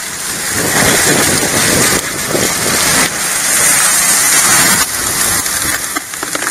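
Steady rush of water pouring through a highbanker sluice while shovelfuls of gravel and rocks are dumped onto its grizzly screen.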